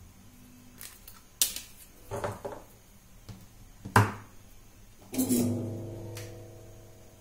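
Hand-work handling sounds on a workbench: scattered clicks and knocks from wires and parts being handled, the loudest about four seconds in. About five seconds in, a knock rings with a few tones that fade away over about two seconds, like a metal part being struck.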